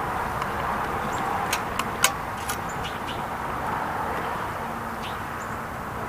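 Steady hum of distant road traffic, with a few short sharp ticks about two seconds in.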